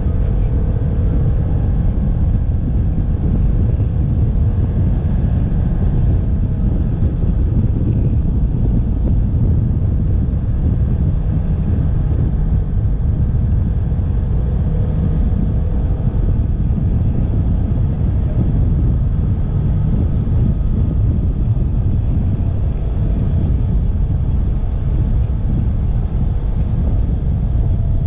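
Polaris Ranger 1000 side-by-side's engine running steadily, with a heavy low rumble.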